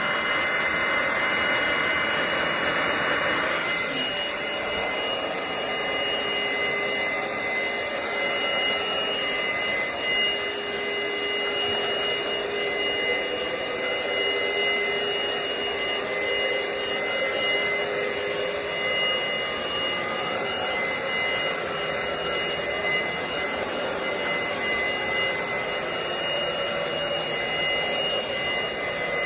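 Cordless stick vacuum cleaner running steadily: the motor's rushing air carries two steady high-pitched whine tones. The hiss is a little stronger for the first three to four seconds, then settles.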